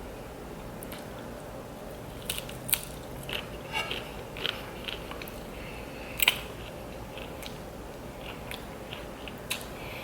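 Close-up chewing of breaded fried shrimp: irregular crisp crunches and small wet mouth clicks, starting about two seconds in, with the loudest crunches near three and six seconds.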